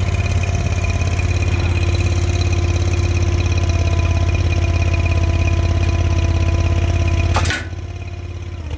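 Small Honda gas engine of a stand-on skid steer running steadily with an even, rapid low pulse. About seven and a half seconds in there is a sharp click, and the engine sound drops noticeably quieter for the last second.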